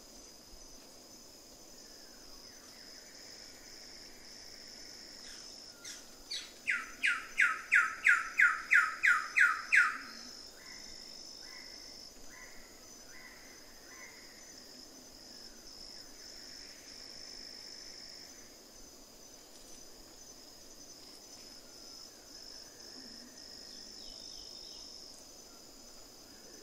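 Wilson's bird-of-paradise singing. About six seconds in comes a loud run of about a dozen notes, each falling in pitch, at roughly three a second. It lasts about four seconds, over a steady high-pitched drone of crickets or other insects.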